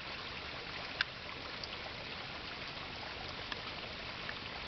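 Creek water running and trickling steadily, with one short click about a second in.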